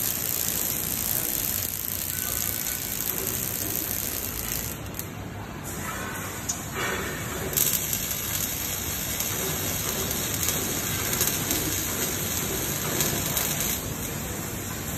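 Robotic arc welding on a square steel tube: the welding arc gives a steady crackling hiss.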